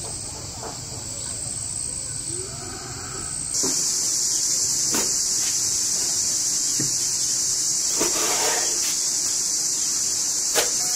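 A steady high chorus of chirring insects, much louder from about three and a half seconds in. A few short knife strokes knock on a wooden cutting board as raw lamb tripe is cut.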